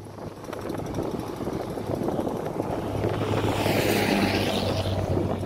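A car driving past close by on the road beside the sidewalk, its tyre and engine noise swelling to a peak about four seconds in, with a low steady engine hum underneath.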